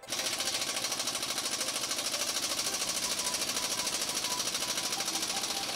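Husky pneumatic impact wrench hammering in rapid, steady blows on a wheel lug nut; it starts abruptly.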